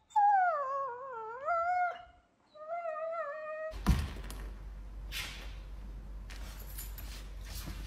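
A dog howling in two long calls. The first wavers down in pitch and back up, the second is held steadier. After a cut there is only low room noise with a single knock.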